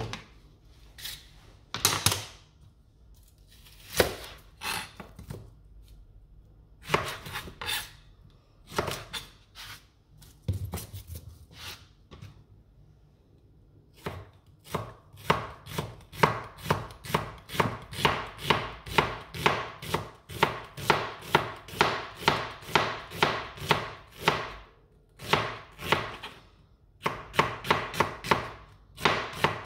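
Kitchen knife cutting a red onion on a white plastic cutting board. First come a few separate cuts and knocks as the onion is trimmed and halved. About halfway through a steady run of slices begins, about two or three a second, with short pauses near the end.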